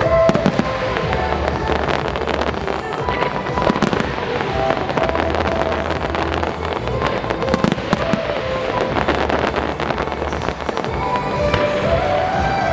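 Fireworks bursting and crackling in a rapid, irregular barrage, with heavier bangs about half a second, four seconds and eight seconds in. The show's loud accompanying music plays underneath.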